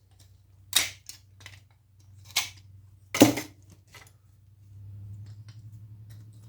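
Sharp clicks and snaps of a tool working a component off a power-supply circuit board: three louder ones, the loudest about three seconds in, with small ticks between. A low steady hum rises slightly in the last couple of seconds.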